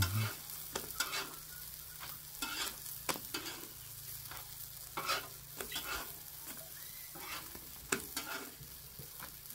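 Pupusas cooking on a hot comal, sizzling steadily with irregular crackles and pops.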